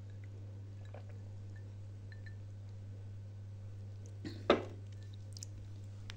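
A drinking glass set down on a table, making one sharp knock about four and a half seconds in, over a steady low hum.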